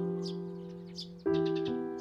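Gentle background piano music, slow chords left to ring and fade, with a new chord struck about a second and a quarter in. Small birds chirp over it.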